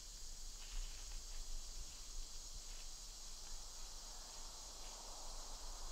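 Steady high-pitched chorus of singing insects such as crickets, an even shrill hum that holds without a break.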